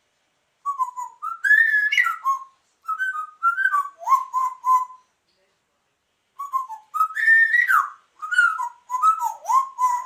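Pet parrot whistling a sliding, tune-like phrase twice, with a pause of about a second and a half between.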